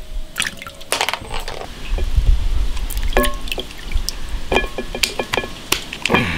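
River snails being washed by hand in water: many sharp clicks and knocks of the shells against each other and the basin, with sloshing water that swells about two seconds in.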